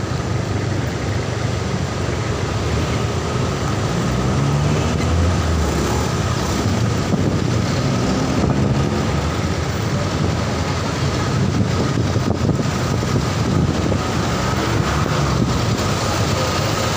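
Motorcycle engine running at low speed in slow, heavy traffic, its pitch rising and falling as the rider eases on and off the throttle, over steady road and traffic noise.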